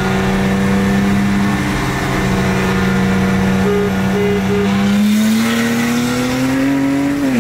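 Turbocharged BMW inline-six heard from inside the cabin. It drones at a steady pitch, then revs up under acceleration from about five seconds in, and its note drops sharply near the end as it shifts up.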